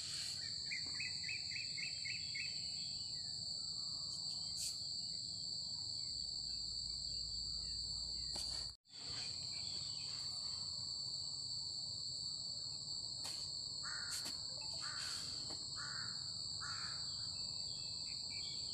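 Steady, high-pitched chorus of insects, which cuts out for a split second about nine seconds in. A bird gives a short rapid trill about a second in, and calls four times in a row about five seconds before the end.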